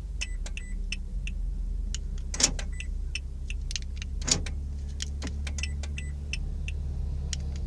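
Car sounds with a steady low hum, many light clicks, and two sharp clunks about two and a half and four and a half seconds in; the hum grows stronger after the second clunk.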